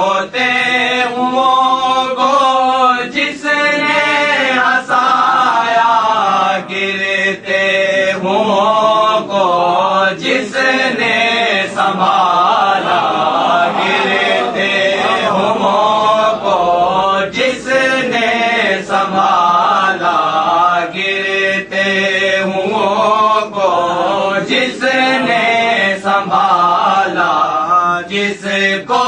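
A man's voice chanting verse in a melodic recitation, with long held notes that waver and bend in pitch.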